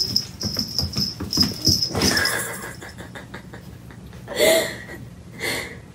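Domestic cat calling: one loud meow about four and a half seconds in and a shorter one a second later. Before them come a run of soft knocks and a steady high whine, which stops after about two seconds.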